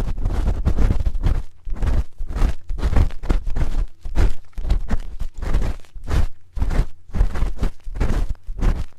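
ASMR ear cleaning with a spoon: the spoon scrapes and rubs in a microphone's ear in repeated strokes, about two a second. Each stroke is scratchy and carries a deep rumble from handling the microphone.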